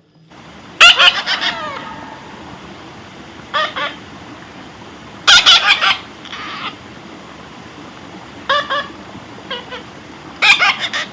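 A parrot calls in loud, harsh squawks, about six short bursts a second or more apart.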